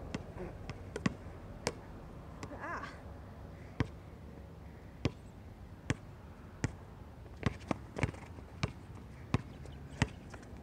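Basketball being dribbled on a hard outdoor court: about a dozen sharp, separate bounces, slow and uneven at first, then quicker in the second half.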